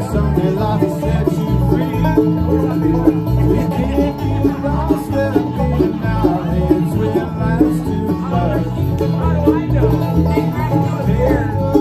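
Live bluegrass band playing: banjo, mandolin, acoustic guitar and electric bass over a steady beat.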